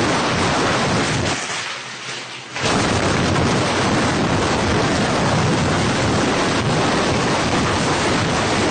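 Loud, steady rushing noise with no distinct tones. It thins out and drops back about a second and a half in, then returns full and deep about a second later.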